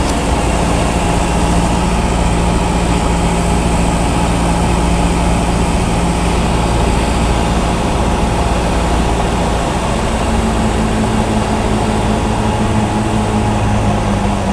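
Cessna 172's piston engine and propeller droning steadily, heard from inside the cabin on final approach. About ten seconds in, the engine note shifts up in pitch.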